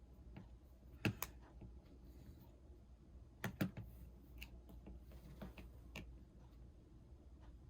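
Scattered light clicks and taps from handling an opened iPhone 6 and small repair tools, with two sharper double clicks about a second in and again after three and a half seconds.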